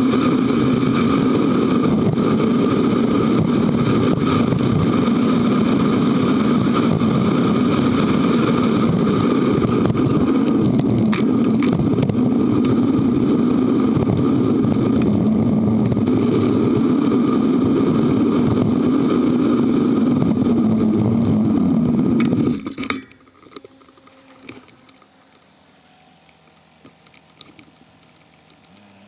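Steady wind and road noise on a bicycle-mounted camera's microphone while riding, loud and unbroken. About 23 seconds in it cuts off suddenly to a much quieter background of distant traffic with a few faint clicks.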